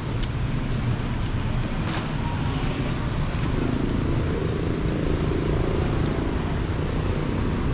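Street traffic: cars driving past, over a steady low rumble, with an engine hum rising out of it for a few seconds in the middle.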